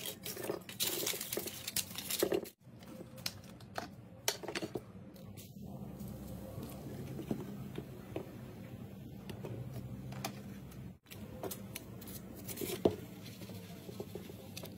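White foam plastic being torn and pushed about in a metal frying pan: irregular crackling, scratching and small clicks, over a low steady hum.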